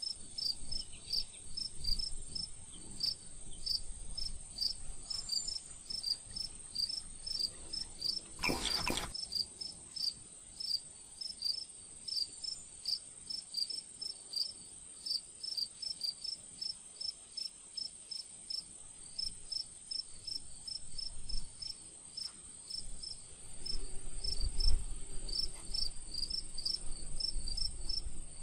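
Insects chirping steadily, about two short high chirps a second, over a constant high-pitched drone. A single sharp knock comes about eight seconds in, and a low rumble near the end.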